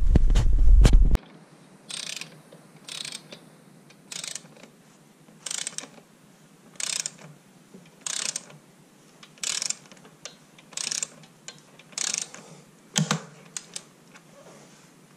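Ratchet torque wrench tightening the crank bolt of a carbon mountain-bike crankset: about ten short ratcheting click strokes, roughly one a second. A loud low rumble comes in the first second, then cuts off.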